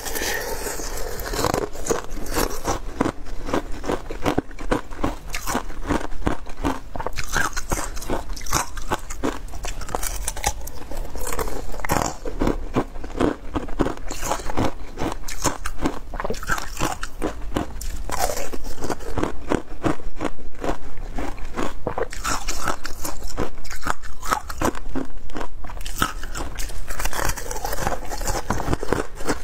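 Thin ice with pomegranate seeds frozen into it being bitten and chewed close to the microphone: a continuous run of crisp cracks and crunches, loudest in the second half.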